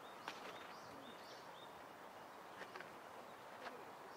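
Quiet outdoor ambience with faint, short bird chirps repeating now and then, and a few faint clicks.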